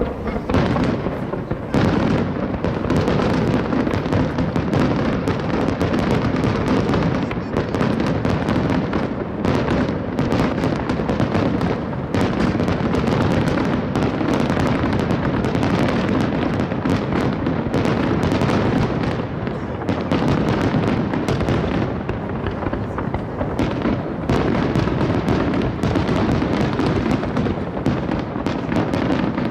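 Fireworks display: a continuous rapid barrage of shell bursts and crackling, many bangs a second, growing louder about two seconds in.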